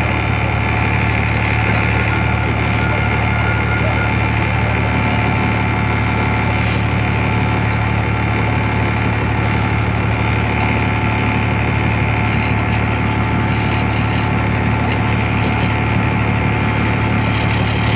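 Old Tata bus's diesel engine running steadily at low speed, a constant low drone heard from inside the cabin.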